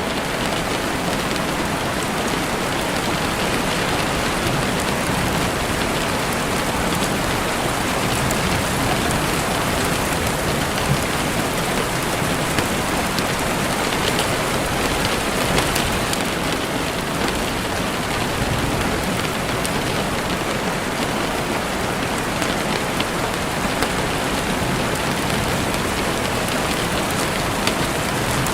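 Steady, dense hiss of rain falling, with a few sharp pops from a crackling campfire.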